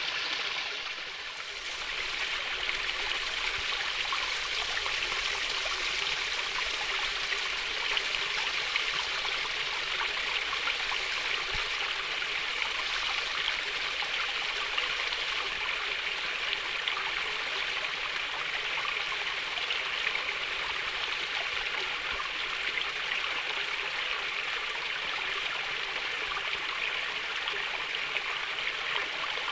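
Calmly flowing stream of water babbling steadily, with a brief dip in level about a second in.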